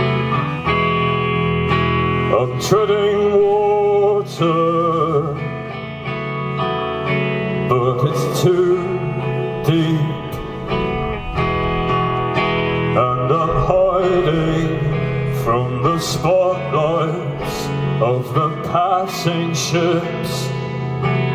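A band playing live: guitars over a steady bass, with a wavering melody line on top and several cymbal crashes in the second half.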